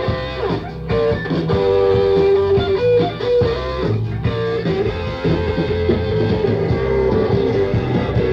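Live punk rock band with an electric guitar solo: long held, bending lead-guitar notes over bass and drums.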